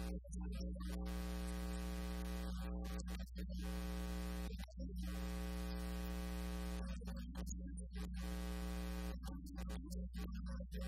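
Steady electrical buzz with many evenly spaced overtones, like a synthesizer drone, with a hiss above it, cutting out briefly several times. It stands in for the sermon's missing speech and is the sign of a fault in the recording's audio chain.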